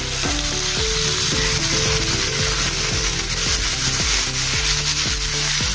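Chopped tomato and onion frying in hot oil in a pan, giving a steady sizzle. Background music with held notes plays over it.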